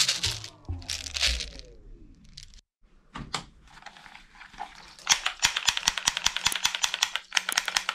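Hard plastic toy guns clattering and clicking against each other as hands rummage through a box of them, with a rattle of plastic BB pellets in a bag at the start. A falling tone fades out in the first two seconds, and the clattering is densest from about five seconds in, as a quick run of sharp clicks and knocks.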